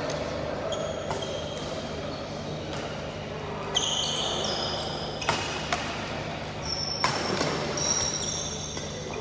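Badminton racquets striking a shuttlecock in a rally, with several sharp cracks from about four seconds in, mixed with the short high squeaks of sports shoes on the synthetic court. A steady low hum runs underneath.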